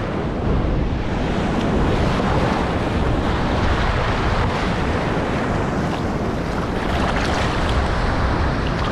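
Ocean surf breaking and washing up a sandy beach, a steady rushing of water, with wind buffeting the microphone.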